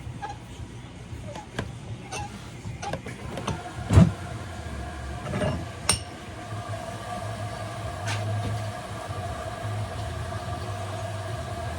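Clicks, knocks and clinks of a removed washer drain pump and tools being handled on a bench, with one sharp thump about four seconds in. A steady hum runs underneath, and a steadier tone joins it from about then on.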